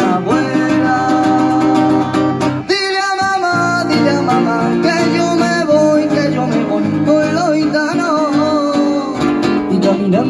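Live band music: acoustic guitar strummed over keyboard backing with a bending lead melody line, broken by a short stop about two and a half seconds in.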